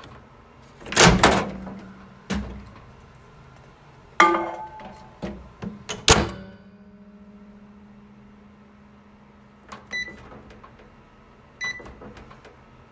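Microwave oven handled: several loud clunks and clicks of the door and latch over the first six seconds, with a low hum under them. Then two short keypad beeps near the end as the buttons are pressed.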